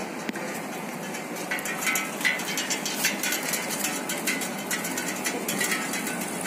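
Street background noise: a steady hiss with frequent short clicks and a few brief high chirps from about a second and a half in.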